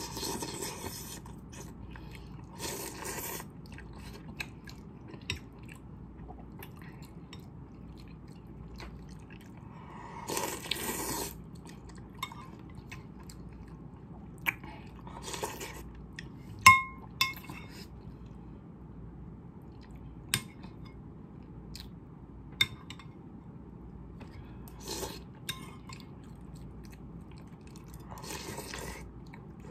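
Instant noodles being slurped in several short, noisy bursts, with chewing between them and sharp clinks of a metal fork and spoon against a ceramic bowl. The loudest is a single ringing clink about halfway through.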